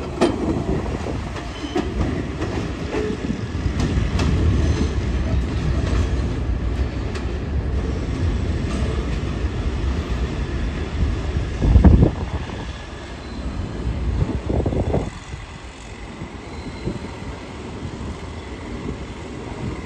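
R46 subway train pulling out of an elevated terminal station, its wheels rumbling and clattering over the rail joints. There is a louder knock about 12 seconds in, and the sound drops off sharply about 15 seconds in as the train moves away.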